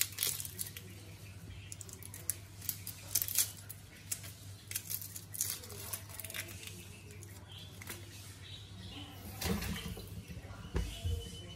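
Hands peeling the dry, papery skin off a red onion: irregular sharp crackles and tearing rustles. A couple of duller knocks come near the end.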